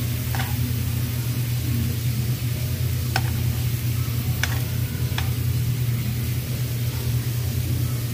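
Marinated meat and shrimp sizzling on a tabletop Korean barbecue grill, with metal tongs clicking against the grill about four times as the meat is turned. A steady low hum runs underneath.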